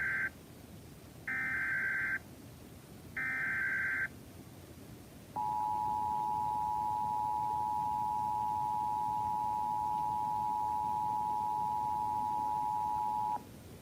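Emergency Alert System tones: the end of the first SAME header burst and then two more, each a harsh warbling digital screech about a second long, followed a second later by the two-tone EAS attention signal, a steady discordant dual tone held about eight seconds that cuts off sharply. The coded header and attention tone announce a severe thunderstorm warning.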